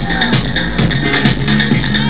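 Live techno played loud through a club sound system, a dense electronic track with sustained bass tones.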